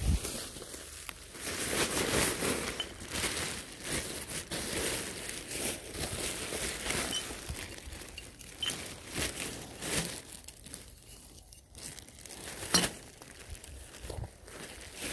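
Thin plastic rubbish bags rustling and crinkling in irregular bursts as litter is handled and stuffed into them, with one sharp knock near the end.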